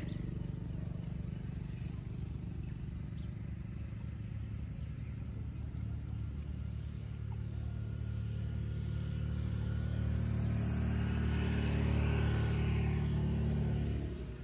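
Motor vehicle engine running with a steady low hum, growing louder and joined by road hiss over the last few seconds, then cutting off abruptly near the end.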